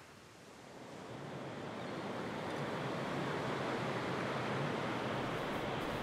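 Ocean surf washing in a steady rush of noise, swelling up about a second in.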